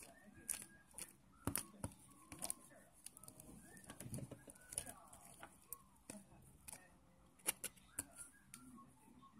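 Wooden craft stick stirring pink glue slime in a small plastic cup, giving faint, irregular clicks and taps as the stick knocks against the cup.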